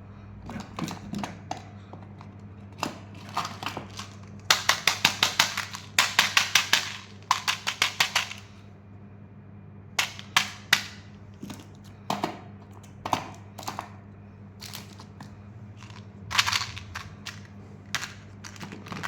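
Plastic candy packaging being handled and opened: irregular sharp crackles and clicks, with a fast run of snapping crackles between about four and eight seconds in and another cluster near the end. A steady low electrical hum sits underneath.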